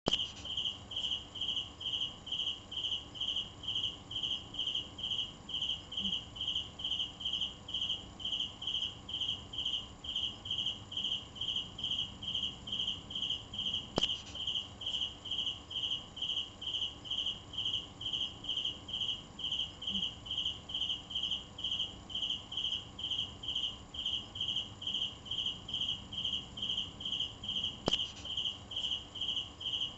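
Cricket chirping steadily, a regular run of high chirps at about two a second, with a couple of brief clicks.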